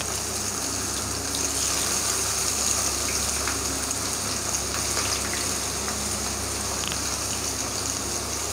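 Boiled, squeezed bitter gourd slices deep-frying in hot oil: a steady sizzle with small pops as more slices are dropped in.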